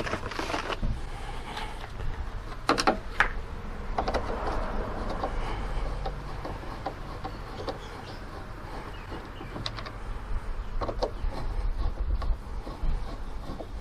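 Scattered clicks and knocks of hand work on a car's tail light assembly, with a cluster about three seconds in and another near eleven seconds, over a low steady rumble.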